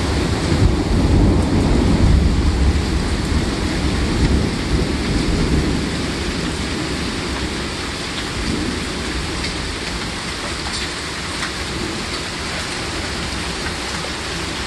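Heavy downpour of rain and hail, a dense steady hiss. A deep low rumble is loudest in the first few seconds, then eases off. A few faint ticks come through later.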